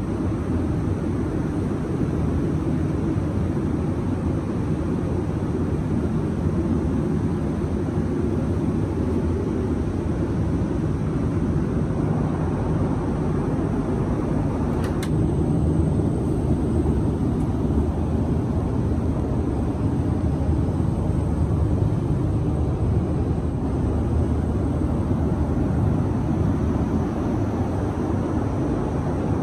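Steady cabin noise of an Airbus A330-300 in cruise: a low, even rush of engines and airflow. A single faint click about fifteen seconds in.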